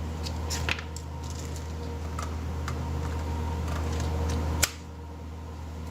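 Small plastic clicks from handling a DeWalt 8V Max battery pack and gyroscopic screwdriver, with one sharp click about four and a half seconds in as the battery latches into the screwdriver's handle.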